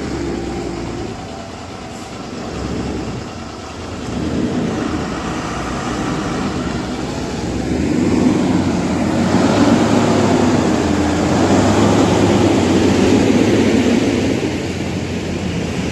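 Heavy diesel goods truck running as it drives slowly past at close range. The engine note grows louder about four seconds in and is loudest over the last half.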